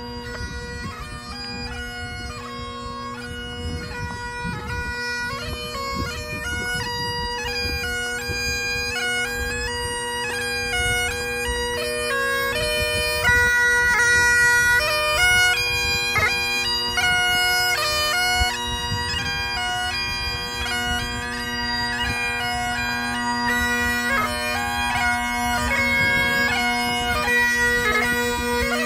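Bagpipes playing a tune over steady drones, growing louder over the first dozen seconds.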